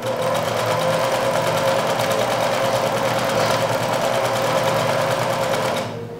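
Domestic electric sewing machine stitching a hem, running steadily with a fast, even needle rhythm, then stopping near the end.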